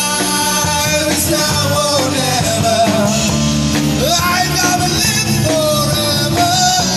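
Live band playing a rock song: a man singing lead into a microphone over strummed acoustic guitars and a drum kit with cymbals.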